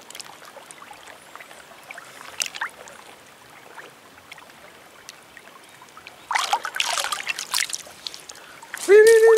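Water trickling and lapping at the surface with small splashes, louder for a second or so about six seconds in. Near the end a loud, steady pitched note starts and holds.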